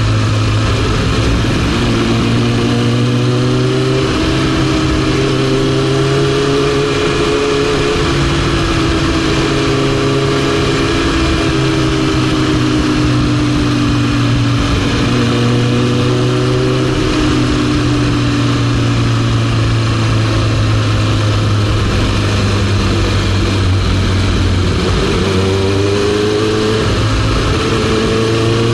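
Kawasaki ZX-9R's inline-four engine running in second gear at town speed, its pitch rising and falling gently as the throttle is opened and eased off, heard from a camera mounted on the bike, over a steady low rumble.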